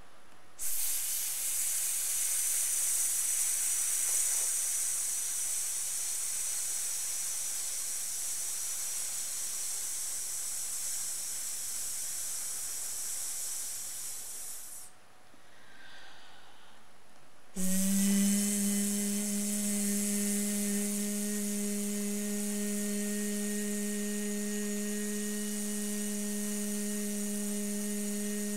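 A woman's sustained /s/ hiss, held steadily for about fourteen seconds, then after a short pause a sustained voiced /z/ buzz held to the end. Both are held as long as possible for the s/z ratio and maximum phonation time task of a voice assessment.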